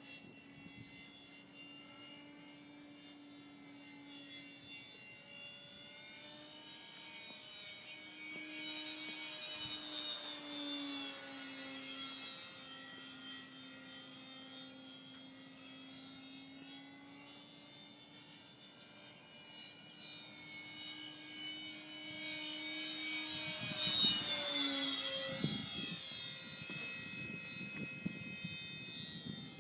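Parkzone P-47 electric RC plane's motor and propeller whining steadily in flight. It gets louder as it passes about ten seconds in, and again near the end, where the pitch drops as it goes by.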